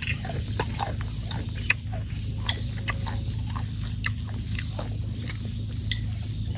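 Close-up chewing of crisp sour tamarind pods, with irregular crunchy crackles over a steady low hum.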